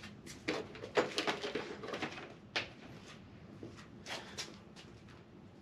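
Scattered light clicks and knocks of tools and parts being handled.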